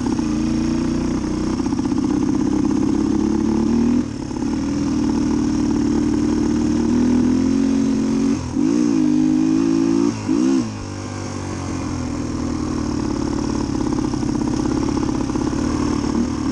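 1990 Suzuki DR250's single-cylinder four-stroke engine running at a steady idle while the gearbox is shifted through the gears. The engine speed dips and recovers briefly about four seconds in and twice more around the middle, then settles lower.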